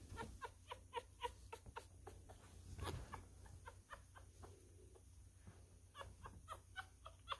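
Newborn miniature schnauzer puppy squeaking: short, high, thin cries a few times a second, with a lull a little past the middle. A louder handling rustle about three seconds in.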